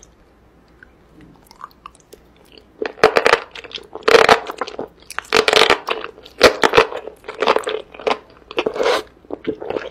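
Close-miked eating of sauce-coated enoki mushrooms: wet crunching and slurping chews, several a second, starting about three seconds in after a fairly quiet start.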